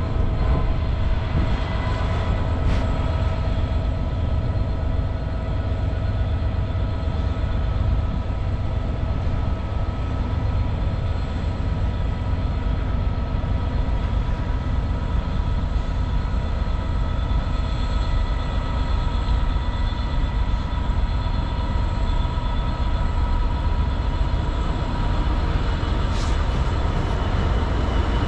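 Diesel freight locomotive running steadily: a continuous low rumble with several steady whining tones over it.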